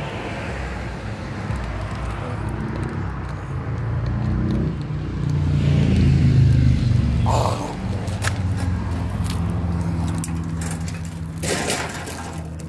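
Motor vehicle engine running with a low, steady rumble that swells louder about halfway through and then eases back. A short burst of hiss comes near the end.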